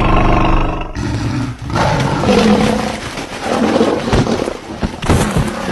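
A big cat roaring: a deep, pulsing roar in the first second, then more rough, loud roars through the rest.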